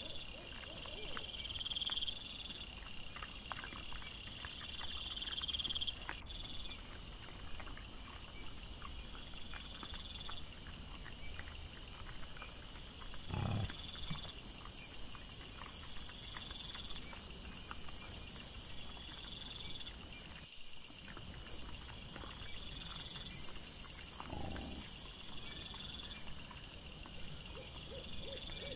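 Wild boar rooting and feeding among insects chirping in steady repeated pulses, played back sped up about four times. Many small ticks and rustles from the animals, and two short low grunts, one about halfway through and one near the end.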